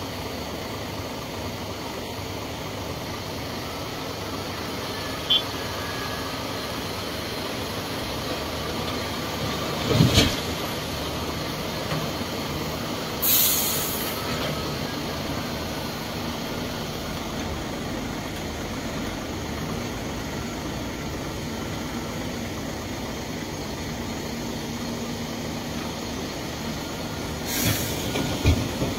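Heavy diesel machinery running steadily: a Caterpillar 336 excavator and dump trucks at work. A loud knock comes about ten seconds in, and short high hisses come about thirteen seconds in and again near the end.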